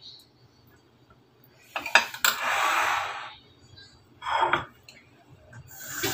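Metal spoon and fork clinking and scraping against white ceramic plates and a serving bowl as stir-fried food is dished onto rice. A few sharp clinks come about two seconds in, with stretches of rustling hiss between them.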